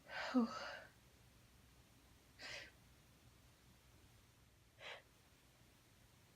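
A woman sneezes once, a sharp burst with a short voiced cry, set off by sniffing chhikni snuff. Then come two short breaths, about two and a half and five seconds in.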